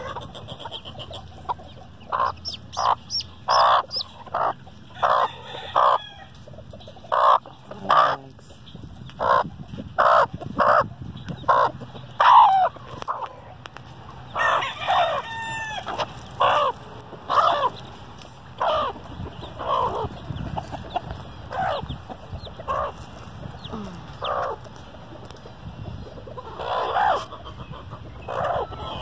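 Chickens clucking in short, separate calls, about one or two a second, some much louder than others, with a few longer gliding calls partway through.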